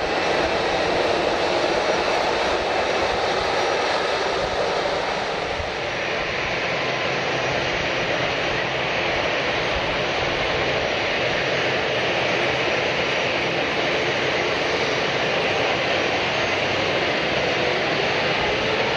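Airliner jet engines running loud and steady, a dense rushing roar that shifts in tone toward a higher hiss about six seconds in.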